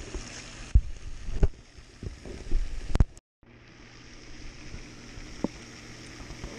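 Several sharp knocks and thumps over a steady outdoor background hiss. The loudest knock comes about three seconds in, followed by a brief cut to silence, then steady background with one more light knock.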